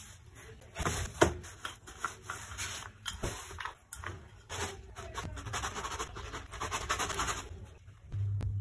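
Wooden rolling pin rolling out a sheet of semolina-dusted batbout dough on a granite counter: a rough, repeated swishing, with a sharp knock about a second in.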